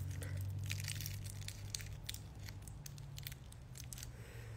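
Faint crinkling and small clicks from a blunt wrap being rolled between the fingers and licked shut, over a low steady hum.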